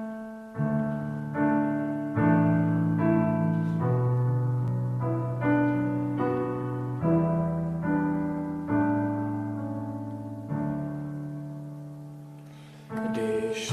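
Slow piano introduction to a song: a series of sustained chords, each struck and left to ring and fade, changing about every second or so. A fuller, louder passage begins just before the end.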